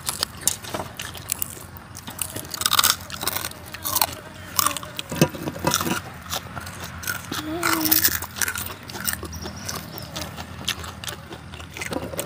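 Mouths crunching and chewing crispy deep-fried pork cracklings (khaep mu), a run of sharp, crisp crunches, with a few brief murmurs between bites.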